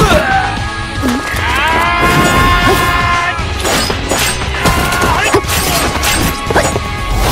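Fight-scene soundtrack: music under a rapid series of sharp hits and crashes, with pitched cries that glide downward.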